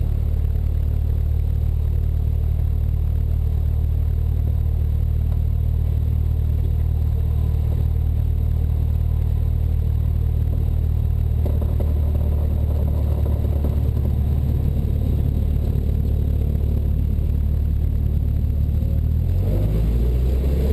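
Cessna 172 Skyhawk's piston engine and propeller droning steadily at low power. Near the end the pitch shifts as the throttle is opened for the takeoff roll.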